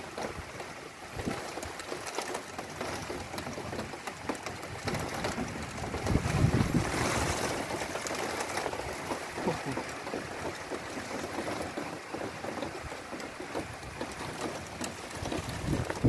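Rainstorm: steady rain hiss with gusting wind buffeting the microphone. A stronger gust swells about six seconds in and eases off a few seconds later.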